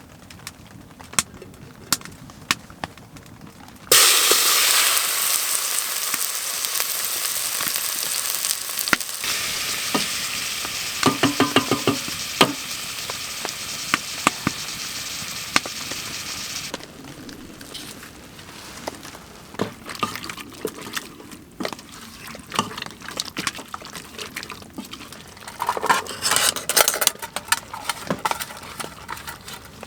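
Food sizzles loudly in a hot pan, starting suddenly about four seconds in, while a utensil stirs and scrapes it. The sizzle drops away sharply a little past halfway, leaving the light clinks and taps of utensil on cookware.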